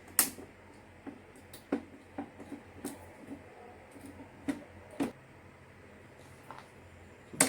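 Scattered sharp clicks and knocks of hand tools and hard plastic parts being handled while a printer is taken apart, the loudest about a quarter second in.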